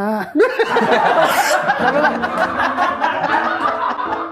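Several people laughing at once, their voices overlapping.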